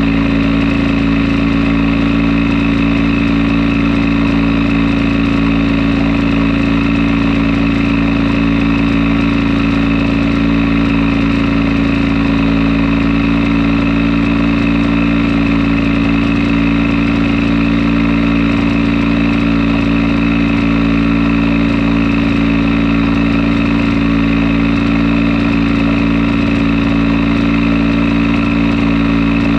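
Fichtel & Sachs Stamo ST-204 single-cylinder two-stroke engine driving a generator, running at a steady, unchanging speed.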